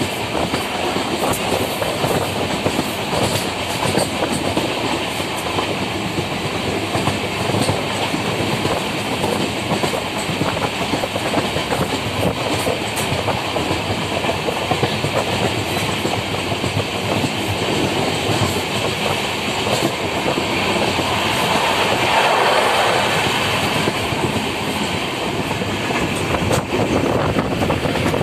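Running noise of an express passenger train at speed, heard through an open coach door: a steady rumble of wheels on rails with the clickety-clack of rail joints, swelling a little about three quarters of the way through.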